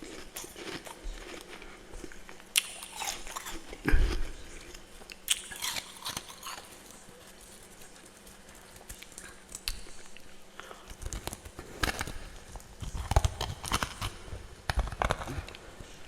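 Biting and chewing freezer frost close to the microphone: irregular crisp crunches, with one loud bite about four seconds in and a quick run of crunches near the end.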